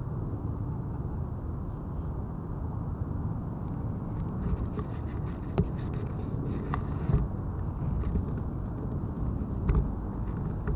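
Steady low rumble of wind and movement noise on a body-worn camera's microphone, with a few short sharp clicks or knocks about five and a half, seven and nine and a half seconds in.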